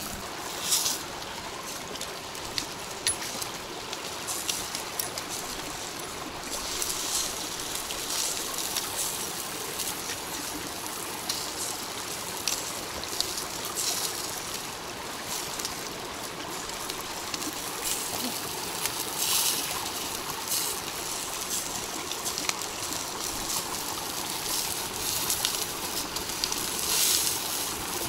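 A small rocky creek running and trickling steadily. Short crackling bursts come and go, from the wood fire burning hard in a small camp stove.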